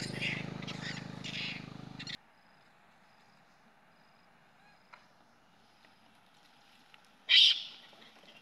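A low steady hum with high-pitched calls over it stops abruptly about two seconds in. Near the end, a macaque gives one short, loud, high-pitched cry.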